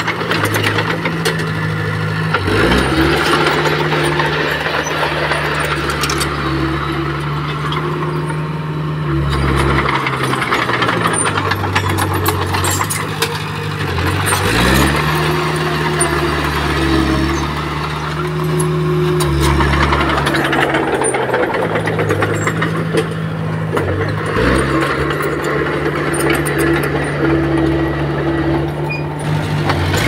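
Diesel engine of a Komatsu D20P bulldozer working under load, its pitch dipping briefly and then recovering three times, with metallic rattling over it.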